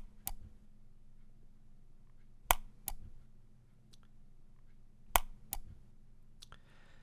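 Sharp clicks of keypad controller buttons being pressed, in pairs about half a second apart, a pair every two and a half seconds or so, with a lone click near the end, over a faint steady hum.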